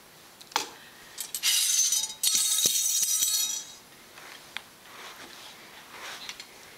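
A sharp click, then two loud bursts of high-pitched clinking and crashing with a ringing edge, like glass or metal clattering, over a couple of seconds.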